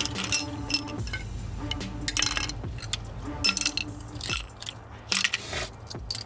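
Metal hand tools and sockets clinking and rattling as they are picked up and put away: a string of sharp irregular clinks, some with a brief high ring, over a steady low hum.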